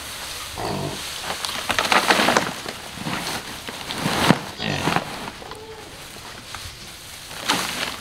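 Farm livestock calling: several separate cries a second or so apart, some pitched like bleats and some harsher and noisier.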